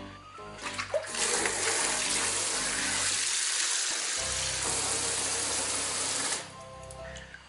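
Kitchen faucet running full, its stream splashing into a plastic basin of water in a steel sink; it starts about a second in and shuts off near the end.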